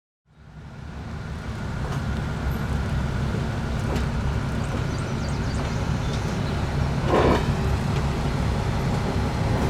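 Steady low vehicle rumble, fading in over the first second, with a brief louder surge of noise about seven seconds in.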